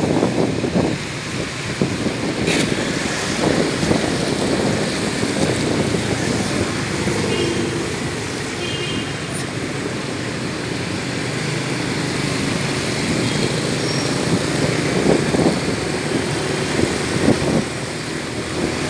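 Steady heavy rain mixed with street traffic on wet roads, vehicles swelling past near the start and again near the end, with two short faint high beeps near the middle.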